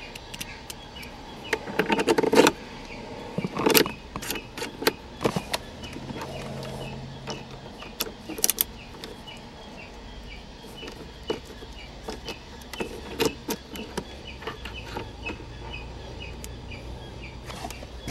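Irregular clicks, taps and clatter of small metal parts and a hand tool being handled, the loudest clusters about two and four seconds in, as set screws are backed out of a machined shifter-knob adapter.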